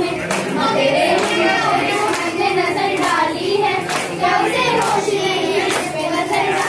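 A group of children singing together while clapping their hands in a steady rhythm.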